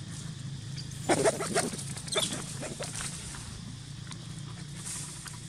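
Macaques moving through dry leaf litter: a burst of rustling and crackling about a second in, a second brief crackle soon after, then quieter scuffling, over a steady low hum.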